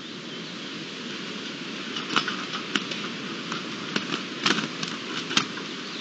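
Steady outdoor hiss, joined from about two seconds in by an irregular run of sharp taps and clicks from European turtle doves moving about on a wooden feeding platform.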